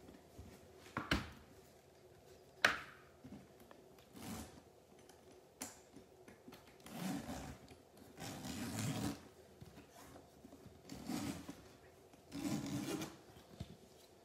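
Metal zipper on a Louis Vuitton Dog Carrier 40 being drawn open in four short pulls, after two sharp clicks near the start.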